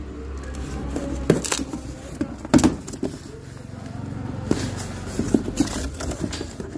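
A cardboard case being opened by hand: flaps pulled apart and sealing tape torn, with scattered sharp knocks and rustles of cardboard. A steady low hum runs underneath.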